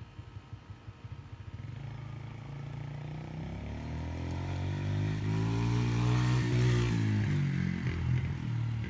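Small child's dirt bike engine running, growing louder as the bike comes closer, passing close about six to seven seconds in, then dropping in pitch as it rides away.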